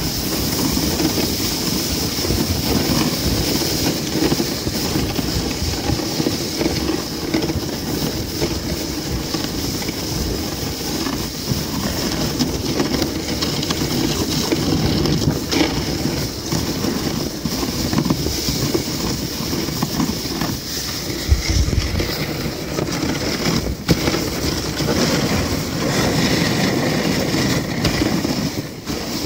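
Dog sled gliding over snow: a steady scraping hiss from the runners, with small knocks and rattles from the sled.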